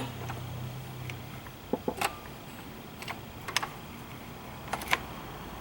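Irregular light metallic clicks and taps of hand tools being handled on a car engine, about seven over a few seconds. A low steady hum fades out in the first second and a half.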